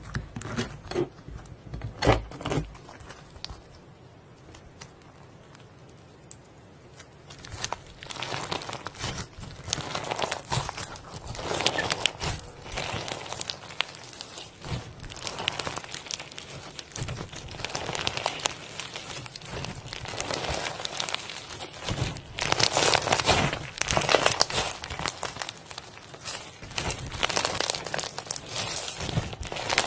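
Crunchy textured slime being pressed, spread and stretched by hand, with dense crackling and crinkling. It is sparse and quiet for the first few seconds, then the crackles come thick and steady from a quarter of the way in.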